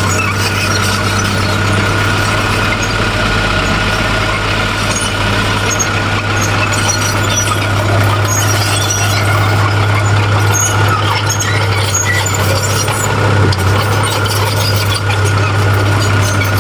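Heavy diesel earthmoving machinery running steadily under a constant low engine drone, with a steady high-pitched squeal.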